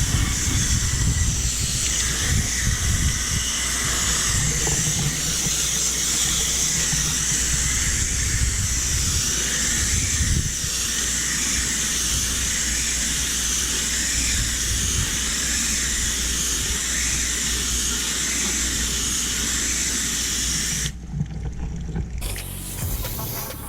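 Water spraying from a hose nozzle onto an air conditioner condenser coil as the coil is rinsed clean, a steady hiss that stops for about a second near the end and then starts again.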